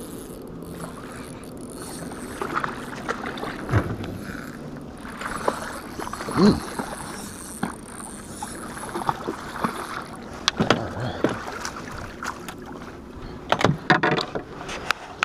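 Water lapping against a small boat's hull, with scattered knocks and clatter from handling on the boat deck.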